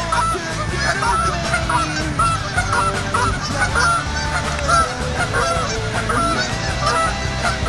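A flock of Canada geese honking, many calls overlapping one after another without a pause.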